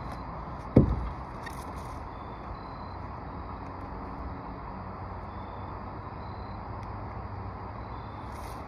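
Steady outdoor background rumble, with one sharp low thump about a second in and a few faint clicks.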